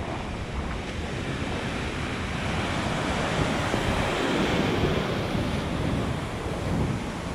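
Rough sea surf surging and breaking against a rocky shore, with wind buffeting the microphone. The wash swells louder around the middle and then eases.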